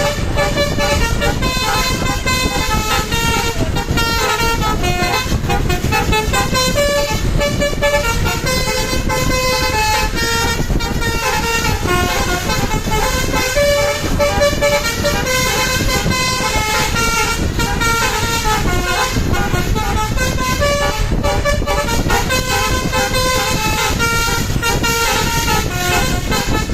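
SJM Trans bus's 'basuri' telolet musical air horn playing a running melody of short, quickly changing notes over steady engine and road noise.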